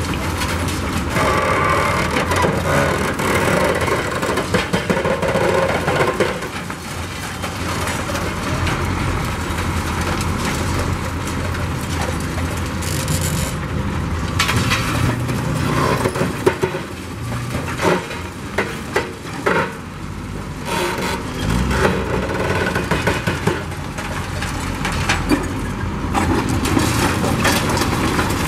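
Demolition excavator working a brick building: a steady diesel engine rumble with cracks, scrapes and crashes of brick and debris being pulled down, thickest over the middle stretch.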